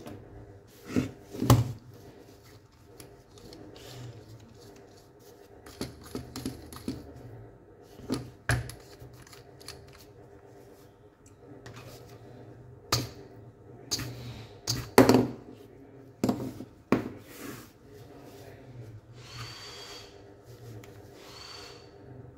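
Scattered clicks, knocks and rattles of a Makita HP347DW cordless hammer drill being handled and taken apart by hand, its clutch ring and gearbox front coming off; the sharpest knocks come about a second and a half in and again about fifteen seconds in.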